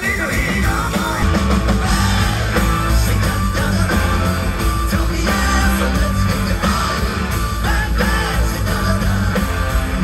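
Live rock band playing: electric bass, electric guitars, keyboards and drums, with a male lead vocal singing.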